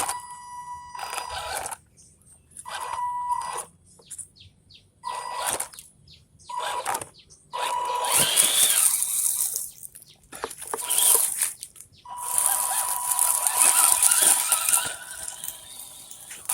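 Small electric motor and gearbox of an MN86KS Mercedes G500 RC crawler whining in repeated throttle bursts, short stabs at first and longer runs in the second half.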